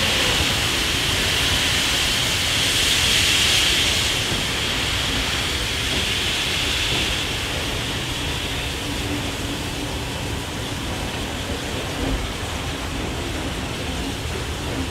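Steam hissing from 3801, a New South Wales C38-class steam locomotive, with a low rumble beneath. The hiss swells to its loudest about three seconds in and eases off after about seven seconds.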